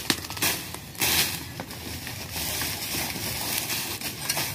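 Dry leaf litter and fallen palm fronds crunching and crackling as they are dug into and raked apart with a long-handled tool and by hand, in repeated sharp rustling bursts, loudest in the first second or so.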